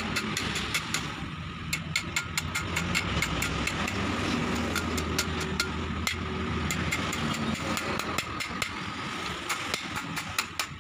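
A hammer tapping steel on a steering rack's rack-end joint, several quick light metallic taps a second, staking the locking ring so the new rack end cannot work loose.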